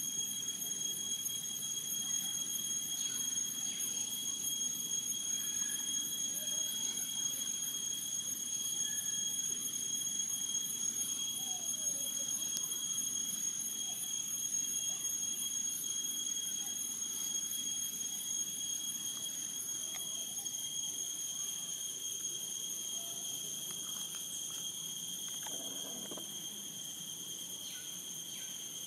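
Insects droning: a steady, high-pitched whine that holds unbroken, over a faint low background murmur.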